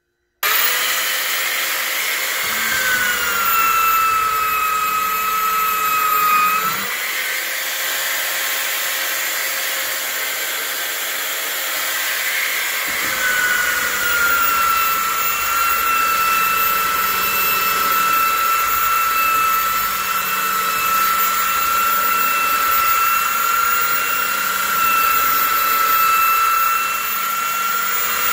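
Skil handheld belt sander switched on about half a second in and run over a wooden stool seat: a steady motor whine over the hiss of the sanding belt. The whine sags in pitch a few seconds in and returns stronger about halfway through.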